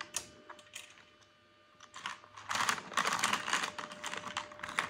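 Small plastic toy food and ice-cream pieces clattering and clicking together in a plastic tray as a child's hands rummage through them. A few scattered clicks first, then a dense run of clatter from about halfway through.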